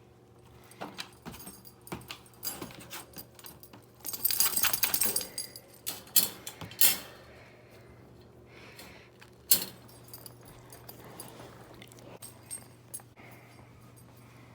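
A German Shepherd puppy stirring and stretching: scattered rustles, scratches and clicks, with a dense rattling stretch about four seconds in and a few sharp clicks after it.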